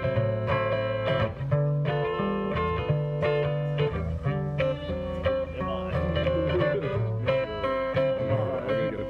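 Electric guitar strumming chords in a steady rhythm, an instrumental passage of a song with no singing, played through stage PA speakers.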